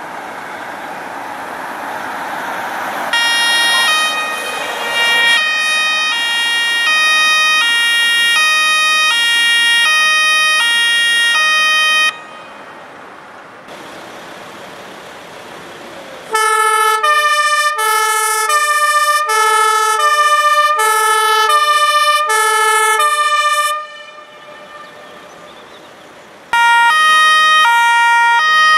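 Fire service two-tone sirens sounding in three separate bursts, each alternating between a high and a low tone and cutting off abruptly. The middle burst is lower-pitched and slower. The first burst follows a rising rush of noise.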